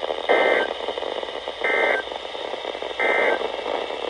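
Emergency Alert System end-of-message data bursts on a weather radio broadcast: three short, identical buzzy digital bursts about a second and a third apart, over steady radio hiss. They signal the end of the warning message.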